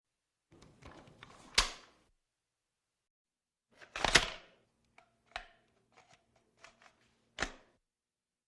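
Gun sound effects: runs of quiet clicks and clacks, broken by three sharp, louder reports. The reports come about a second and a half in, about four seconds in, and near the end; the second is the loudest.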